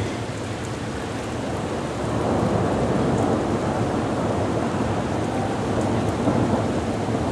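Heavy rain pouring down during a thunderstorm, with a rumble of thunder swelling about two seconds in and going on under the rain.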